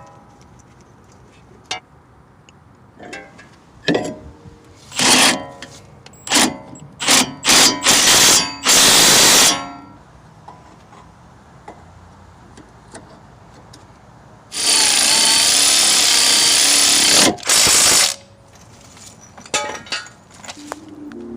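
Handheld power tool run in a series of short bursts, then one longer run of about three and a half seconds, with a few lighter knocks after.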